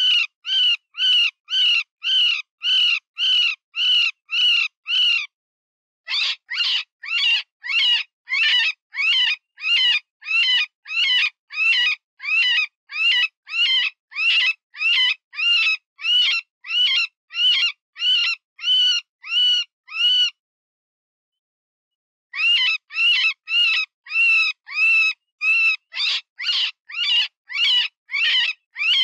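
Cottontail rabbit distress call: a fast run of short, high squeals, about two to three a second, each rising and falling in pitch. The run breaks off briefly about five seconds in and for about two seconds after twenty seconds in. It is the wounded-rabbit cry used as a lure for coyotes, foxes and other predators.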